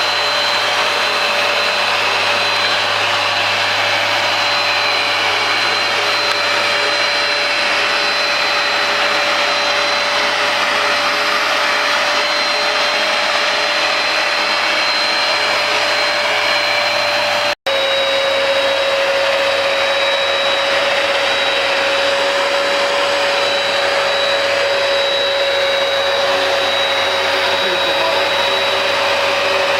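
Hoover Power Dash carpet cleaner running steadily, its suction motor giving a loud, even whine. It cuts out for a split second about two-thirds of the way through, then the whine comes back slightly lower in pitch.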